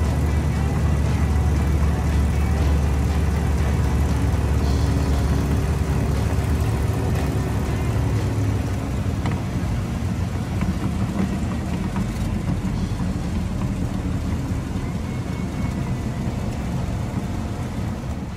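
Single-engine propeller airplane's piston engine and propeller heard from inside the cockpit with wind noise, running steadily at reduced power on final approach. About eight seconds in the engine note drops and turns into a lower, rougher rumble as the airplane rolls out on the grass strip.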